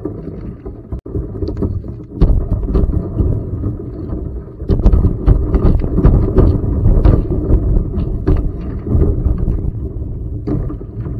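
A plastic kayak hull pushing through thin creek ice: a dense run of cracking, crunching and scraping as the sheet splinters against the bow. It gets louder about two seconds in and is loudest near the middle.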